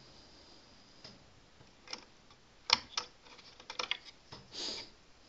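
A few light, irregular clicks and taps, with a short soft rustle near the end: small computer parts being handled and fitted on a bare motherboard.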